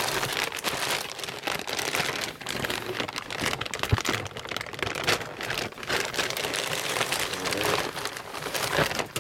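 Packaging crinkling and rustling continuously as it is handled and opened by hand, with many small crackles.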